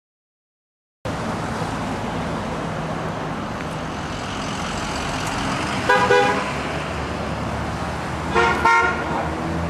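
Car horns honking from passing motorists in support of street marchers: one blast about six seconds in and a quick double toot near the end. Steady street traffic noise runs underneath, starting about a second in.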